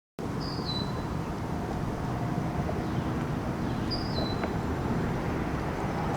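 Steady low rumbling outdoor noise, with a bird repeating a short, high call that steps down in pitch three times, about every three seconds.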